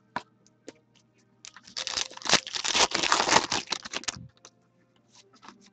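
Foil wrapper of a trading-card pack being torn open and crinkled: a dense crackle for about three seconds, with a few light clicks before and after it.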